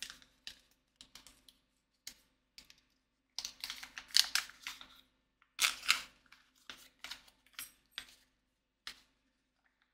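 Paper and plastic packaging rustling and clicking as items are handled out of a camera box: scattered small clicks, with two short bursts of rustling about three and a half and five and a half seconds in.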